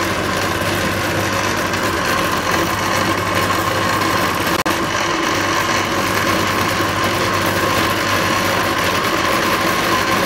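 Electric blender running steadily, its motor giving a constant whine as it grinds onions and yogurt into a smooth paste.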